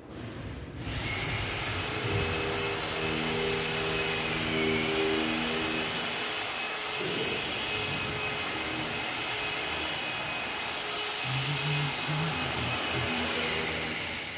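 A motor-driven machine running steadily: a loud hiss with a high whine, its pitch sagging briefly about four seconds in, cutting off abruptly near the end.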